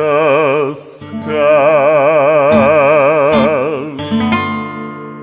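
End of a Russian romance: a man holds the last sung note with wide vibrato over acoustic guitar, and the guitar closes on a final chord that rings and fades away.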